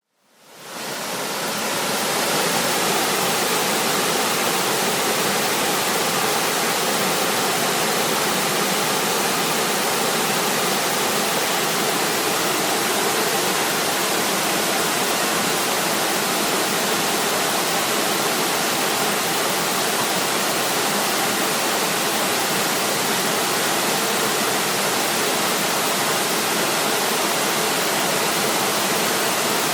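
Small fast-flowing stream rushing steadily, a dense even water noise that fades in over the first two seconds and then holds.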